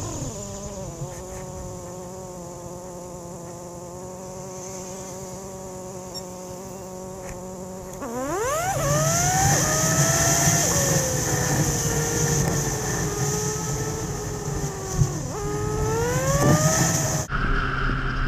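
Motorcycle engine heard from the bike itself. It drops in pitch at first, then holds a steady cruising note. About eight seconds in it revs up quickly through a gear change, then slowly eases off, and climbs again near the end.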